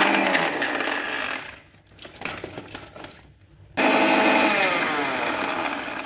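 Electric countertop blender chopping ginger and turmeric pieces, run in two pulses: the first eases off after about a second and a half, the second starts abruptly nearly four seconds in and its pitch falls away as it runs down.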